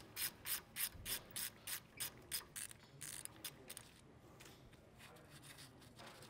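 Faint rhythmic clicking and rasping, about three or four clicks a second, as a T30 Torx driver is turned by hand to back out a crusty, corroded brake-rotor set screw; the clicks fade out about three seconds in.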